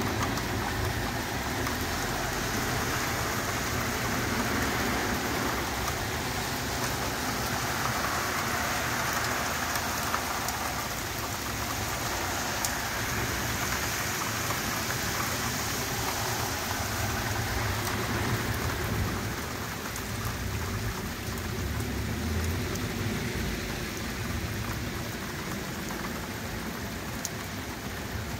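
Heavy rain pouring steadily onto a flooded road and pavement, a continuous hiss of drops hitting standing water. About halfway through, a car drives through the floodwater.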